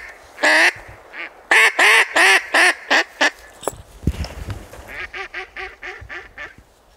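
Mallard hen-style quacking. One loud quack is followed by a quick run of about six quacks that get shorter toward the end, then a fainter run of about six more near the end.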